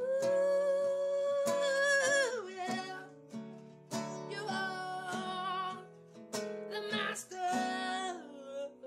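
A woman singing over her own strummed acoustic guitar. A long held note opens, sliding down after about two seconds, then shorter sung phrases follow over the chords.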